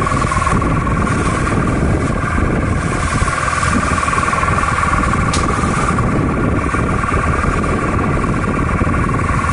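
A boat's engine running steadily: a constant drone with a steady whine over it.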